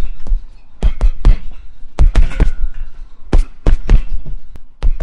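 Fists punching a heavy punching bag: about a dozen solid, deep thuds, thrown in quick combinations of two to four hits with short pauses between them.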